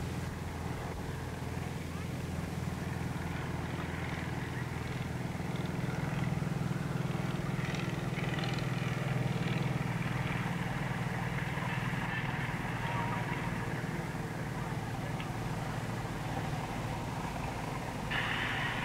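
Distant city noise of Norilsk on an old reel-to-reel tape: a steady low traffic hum with a broad wash of street sound over it, and a higher sound coming in suddenly near the end.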